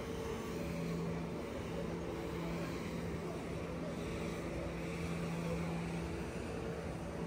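An engine running steadily, a constant low hum over a wash of outdoor noise.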